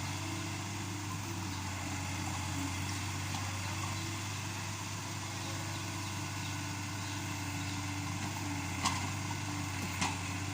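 Yanmar B37 mini excavator's diesel engine running steadily, with two sharp knocks about a second apart near the end.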